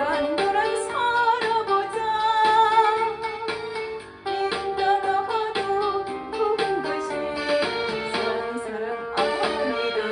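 A woman singing a Korean trot song over a backing track; the music dips briefly about four seconds in.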